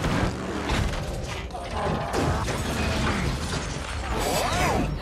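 Added mechanical sound effects for toy robots: dense ratcheting clicks and gear whirring, with short rising and falling whines.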